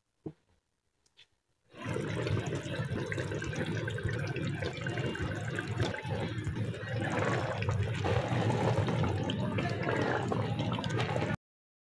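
Chickpea and egg curry bubbling and sizzling in a pot on the stove: a dense watery bubbling that starts about two seconds in and cuts off suddenly near the end.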